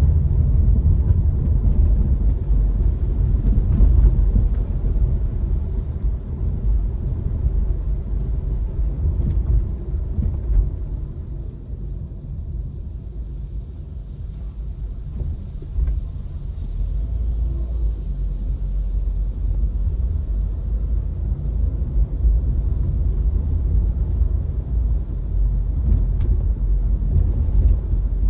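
Car driving along a city street: a steady low rumble of engine and tyre noise, easing off for a few seconds midway before building again.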